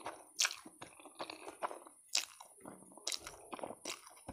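Close-miked mouth sounds of a person eating noodles: wet slurping and chewing, broken by a few sharp, louder clicks.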